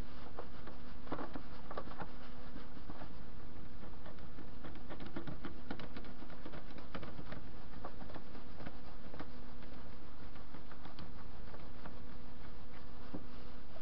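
TV-16 benchtop lathe giving off a steady electric hum, with scattered light metallic clicks and rattles as its toolpost and carriage are moved up to the workpiece.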